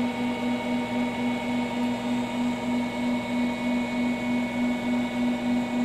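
Spex SamplePrep 8000-series mixer/mill running: a steady mechanical hum with one strong low tone, its level pulsing evenly several times a second.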